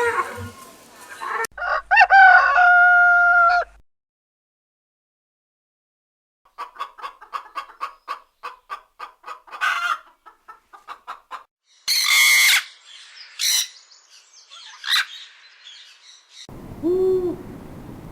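A rooster crows once, then a hen clucks rapidly with several louder squawks. Near the end an owl starts hooting.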